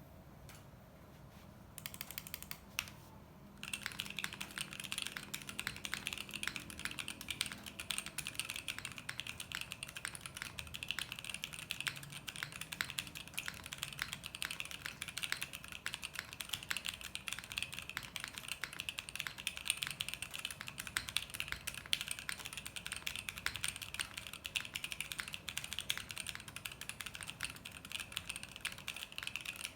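Typing on a mechanical keyboard with stock SP-Star Red Blue CP switches in a gasket-mounted FR4 plate with no foam, giving a clacky sound. A short burst of keystrokes comes about two seconds in, then continuous fast typing from about three and a half seconds.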